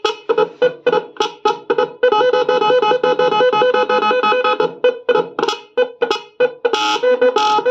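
12 V electronic trumpet horns driven by an 18-tone controller, playing a melody: rapid beeps about four to five a second, then about two seconds in a continuous warbling tune, with the pattern changing again near the end.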